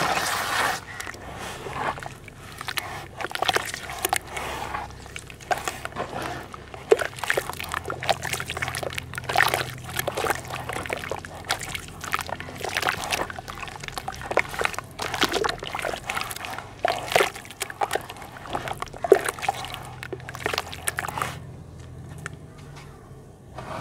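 Hands squeezing and swishing red dirt in a basin of thick muddy water: irregular wet sloshing, squelching and dripping, which quietens near the end as the hands lift out.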